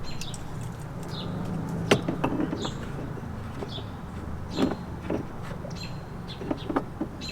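Birds chirping in short calls, with scattered clicks and knocks from the steering-wheel hub being fitted onto the column, the loudest about two seconds in and again past the midpoint.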